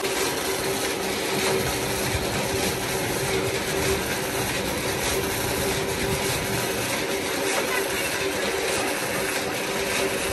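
Water gushing steadily into the canal from a pump outlet at the bank, under the constant hum of the pump's motor.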